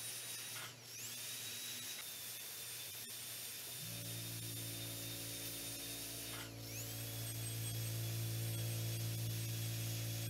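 High-speed air-turbine dental handpiece with a fine tapered diamond bur whining steadily at a high pitch while it shapes a composite filling on a front tooth. The whine dips in pitch and climbs back twice, about a second in and again past six seconds, as the bur bears on the tooth. A low steady hum joins about four seconds in.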